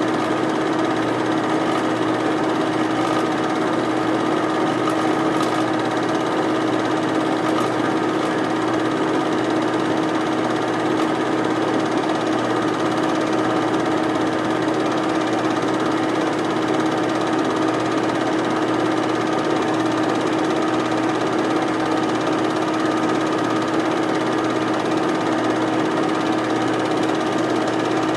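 8mm film projector running steadily, a constant mechanical hum from its motor and film drive.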